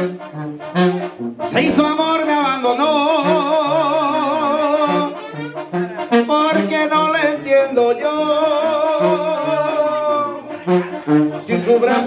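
Live banda sinaloense instrumental break: brass and clarinets play held melody notes with wide vibrato over an evenly pulsing bass line, broken by short sharp ensemble hits.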